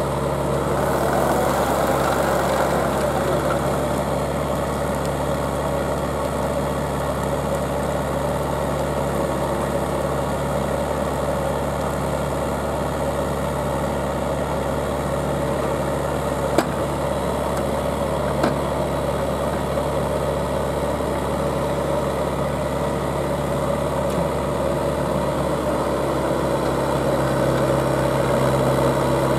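Engine of a small remote-controlled auger drill rig running steadily. Two brief sharp clicks come about two-thirds of the way through, and the engine note gets a little louder near the end.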